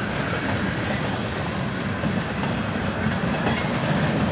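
Freight train cars rolling past with a steady rumble of wheels on rail and clickety-clack over the joints. About three seconds in, faint high-pitched wheel squeal joins in.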